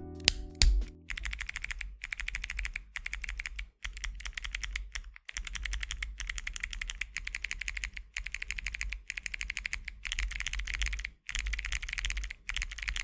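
Fast typing on a mechanical keyboard fitted with Kailh White Owl clicky switches, each keystroke a sharp click, in quick runs broken by short pauses. A brief end of music fades out about a second in.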